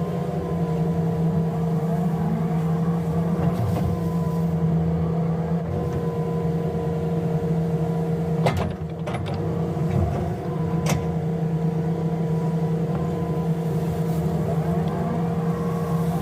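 Excavator's diesel engine running steadily while it works, with a sharp knock about halfway through and another a couple of seconds later.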